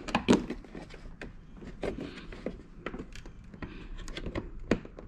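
Irregular sharp plastic clicks and knocks as a BMW F30 kidney grille is pressed down and worked free of its retaining clips, with rustling from close handling.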